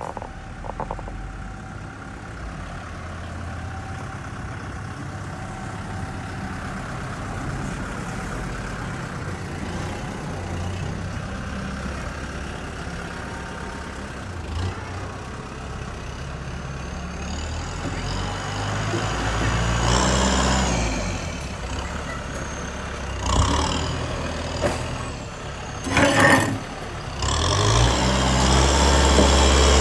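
Heavy diesel engine of earth-moving machinery running with a steady low rumble, revving up about two-thirds of the way through and again near the end. Two short hissing bursts come in between.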